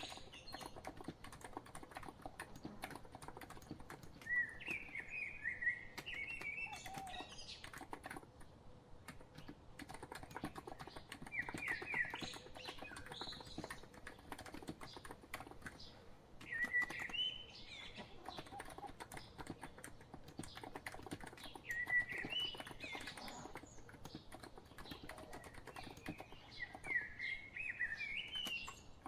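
COX Empress Living Coral Edition electro-capacitive keyboard typing steadily in quick continuous clicks, with a songbird's short chirping phrases coming in every few seconds over it.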